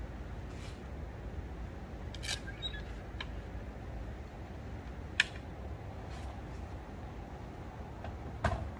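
Scattered sharp clicks and light knocks from camping gear being handled, the sharpest click about five seconds in and a duller thump near the end, over a steady low rumble.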